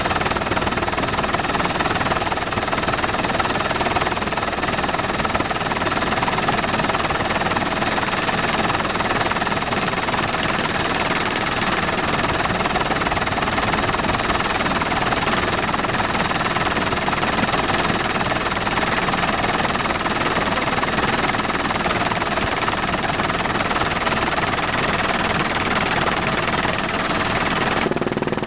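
Helicopter in flight heard from on board: a steady, loud rush of engine and rotor noise with a thin high whine over it. The sound changes abruptly just before the end.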